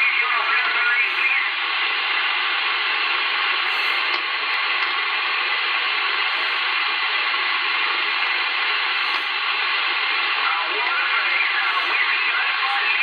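CB radio receiver hissing with steady band noise between transmissions on the 11-metre band, with weak, garbled distant voices just audible in the noise near the start and again near the end.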